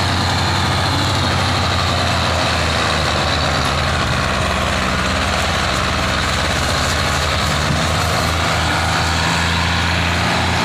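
Belarus tractor diesel engines running hard under heavy load, a loud, steady drone, as the tractors strain to pull a heavily loaded trolley.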